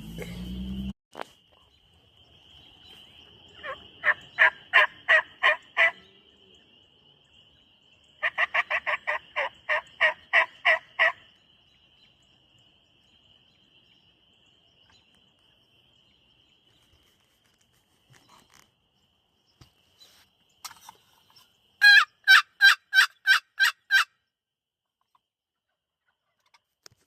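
Wooden turkey box call yelping in three series of about seven to ten even, ringing yelps, the middle series opening with a quick run of notes. A thin, steady high trill of tree frogs runs behind it until about two-thirds of the way through.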